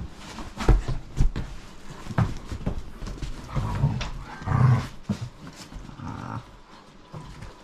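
Two German Shepherds play-fighting: deep growls in the middle of the scuffle, with several sharp knocks and thumps in the first couple of seconds.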